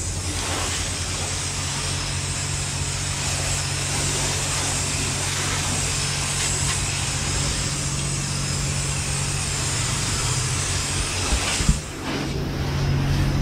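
Self-serve car wash pressure wand spraying a steady jet of water onto a Jeep Wrangler's body and wheel to rinse off road salt. It makes a continuous hiss over a low steady hum, broken off briefly near the end.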